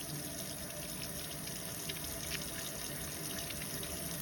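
Tap water running steadily from a faucet over a bar of soap being lathered in the hands, with small splashes.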